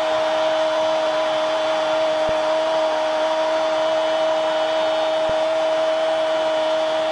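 A steady, motor-like whirring drone with hiss and a constant hum, like a hair dryer or fan, with a faint tick about every three seconds.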